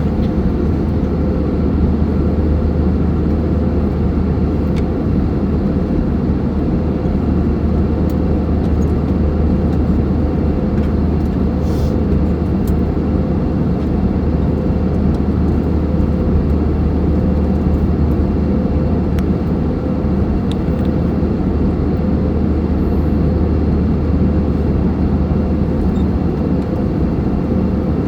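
Airliner cabin noise in flight: a steady, even low roar of engines and rushing air, with a faint steady hum above it.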